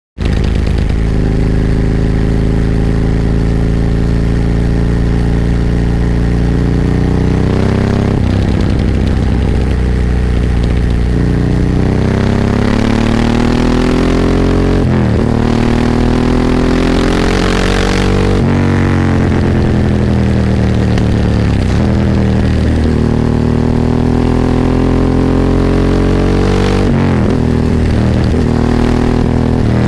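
Ducati 998's 90-degree L-twin engine heard onboard while riding, pulling up through the revs with the pitch climbing steadily and then dropping sharply several times, as at gear changes and throttle closures.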